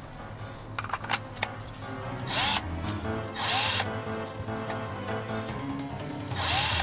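Metabo cordless drill/driver motor run three times in short trigger bursts, each whirring up in pitch as it starts. This is the test run after its burnt power switching transistor was replaced, and the drill works again. A few light clicks come before the first burst.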